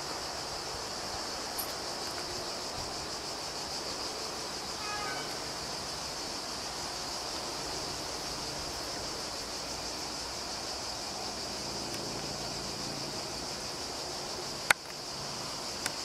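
Cicadas droning steadily, a constant high-pitched buzz, with one sharp click near the end.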